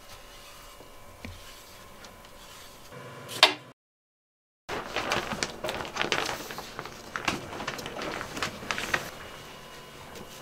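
Clear plastic shower curtain crinkling and rustling, with its rings clicking on ceiling hooks as it is hung up: a long run of irregular crackles and clicks after a second of dead silence. Before that there is quiet room tone with a faint steady hum and one sharp knock.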